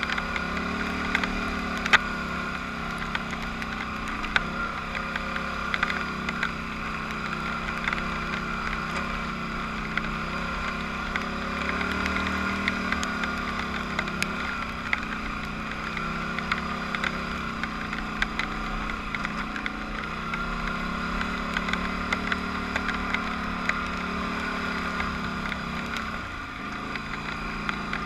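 Polaris Scrambler 850 ATV's parallel-twin engine running on a rough dirt trail, its revs rising and easing every few seconds with the throttle. Frequent short clicks and knocks come through as it rides over the rough ground.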